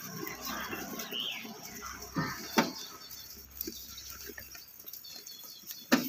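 Salem black goats feeding at a trough: scattered knocks and rustling as they jostle and eat, with two sharper knocks a little after two seconds in.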